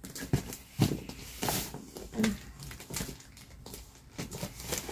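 Plastic mailer packaging being handled and picked open: a string of short rustles and light knocks as fingers work at the wrapping and its packing tape.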